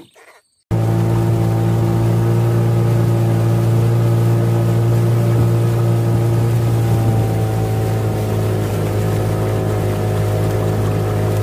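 Outboard motor of a small river boat running steadily at speed, a loud, even engine drone that begins abruptly just under a second in.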